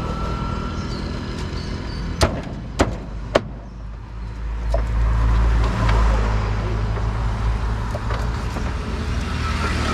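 A motor vehicle running close by, its low rumble swelling and fading in the middle. About two seconds in, three sharp knocks come roughly half a second apart.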